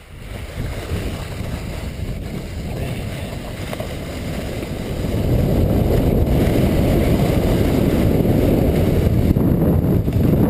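Luge sled sliding down a groomed snow run: the runners scrape and hiss over the snow, mixed with wind rushing over the camera microphone. The noise builds as the sled gathers speed, getting louder about five seconds in and then holding steady.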